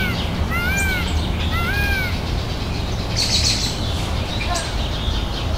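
Peafowl giving a series of short, rising-then-falling, cat-like calls about once a second, then a brief hissing burst about three seconds in, over a steady low rumble.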